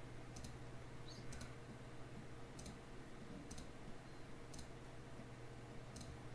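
Computer mouse buttons clicking: about six faint, sharp clicks, a second or so apart, while lines are being selected on screen, over a steady low hum.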